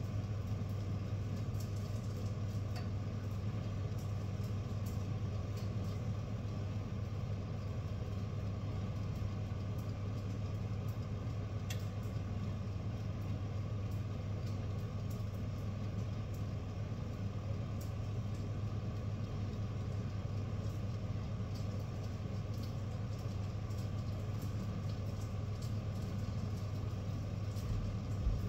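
Steady low machine hum, like a fan or motor running, with faint ticks now and then.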